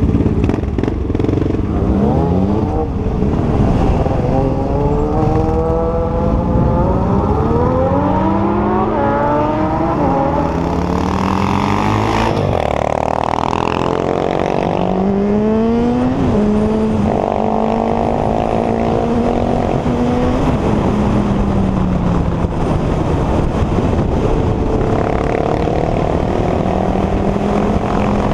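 Yamaha FZ6's 600 cc inline-four engine accelerating through the gears: its pitch climbs and drops back at each shift several times. In the second half the engine settles to a steady cruising note.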